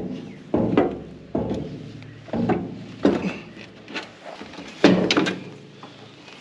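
A series of metal clunks and scrapes as a round metal cover on an old Caterpillar D6 dozer's engine is worked loose and handled, with a cluster of sharper knocks about five seconds in.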